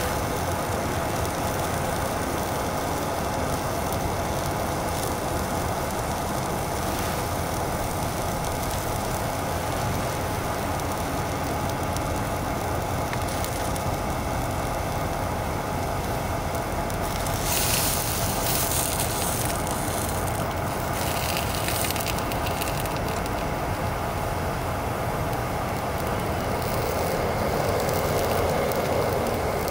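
Single-burner canister gas stove running with a steady hiss under a frying pan of sausages and fries sizzling, with a brief louder burst about 18 seconds in. Near the end the burner grows louder as its valve knob is turned.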